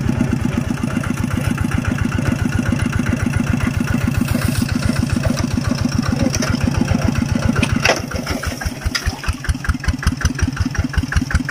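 Single-cylinder diesel engine of a two-wheel walking tractor running with a rapid, steady chug. About eight seconds in it gets a little quieter and the individual beats stand out more clearly, with a couple of sharp clicks.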